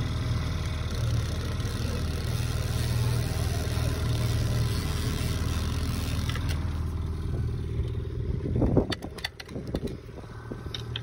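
Small outboard motor running steadily at trolling speed, a low even hum. About two-thirds of the way in comes a short burst of knocks and rattles, louder than the motor.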